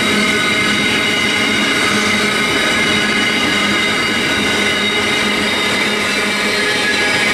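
Intermodal freight train's container wagons rolling past close by: a loud, steady rush of steel wheels on rail with several steady high ringing tones over it.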